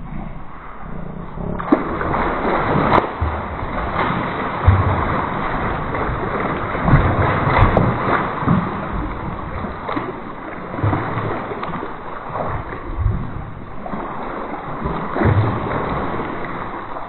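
Water splashing and sloshing in irregular surges, with many dull thumps.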